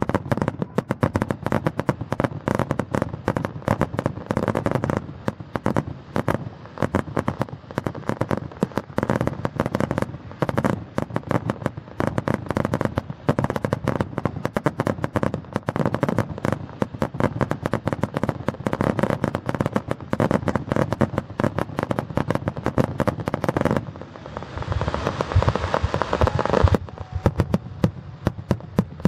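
Fireworks display: a rapid, unbroken run of bangs and crackles from aerial shells and crackling stars. Near the end a louder hissing rush lasts about three seconds, and then the bangs go on.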